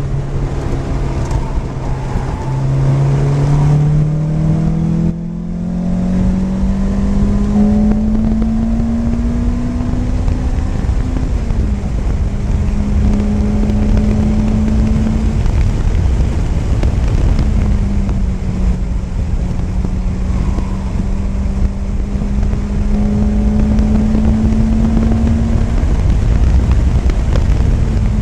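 Lotus Elise's four-cylinder engine heard from inside the open cockpit under hard track driving. The revs climb slowly and drop back several times, with a brief cut about five seconds in, over constant wind and road noise.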